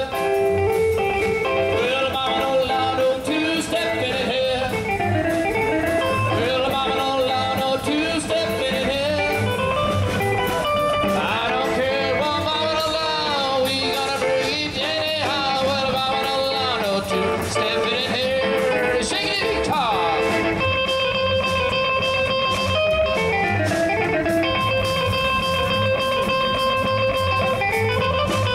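Live rock 'n' roll band playing, led by electric guitar, with wavering, bending notes giving way to steady held notes about two-thirds of the way through.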